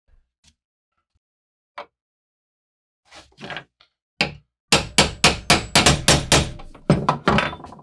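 Hammer strikes: a few scattered knocks, then a quick run of over a dozen sharp blows, several a second, each with a short ring.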